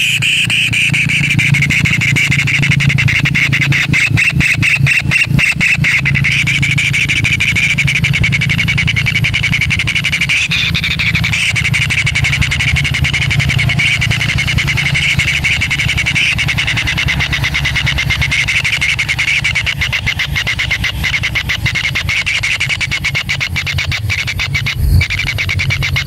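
Kingfisher nestlings in the nest giving a continuous fast, buzzy churring call, with a low steady hum underneath and a single knock near the end.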